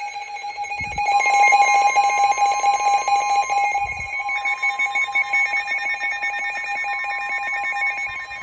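Several NOAA weather radios alarming at once for a Special Marine Warning: fast electronic beeping from the radios layered over a steady alert tone that comes in about a second in.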